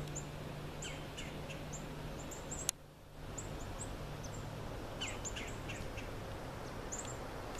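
Small birds chirping in short, high calls scattered throughout, over a steady background hiss and a low hum. A single click about a third of the way in is followed by a brief dip in the background.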